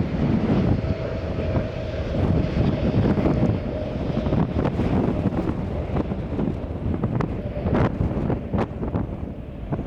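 Strong wind buffeting the microphone in gusts over a steady low rumble, with a faint steady whine for a few seconds near the start.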